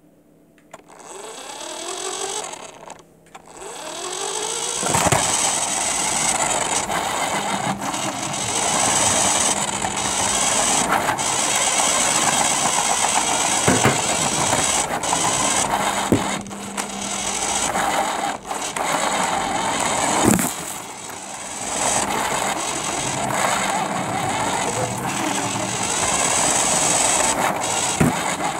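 R/C Mustang model plane's motor and propeller spooling up, rising in pitch over the first few seconds, then running hard as a loud, steady buzzing rush with a high whine from about five seconds in. Several sharp knocks from about halfway on.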